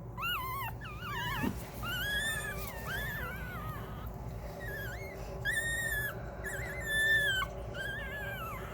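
Newborn puppies squealing and whimpering: a run of high, thin calls, each rising and falling, one after another with short gaps.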